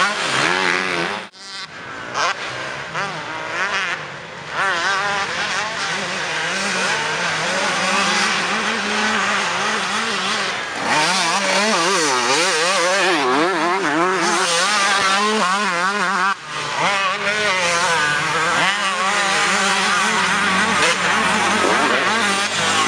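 Honda CR125 two-stroke motocross bikes with full Pro Circuit exhausts, revving hard. The engine pitch rises and falls again and again as the riders work the throttle and gears through the track. The sound breaks off abruptly about a second in and again about two-thirds of the way through.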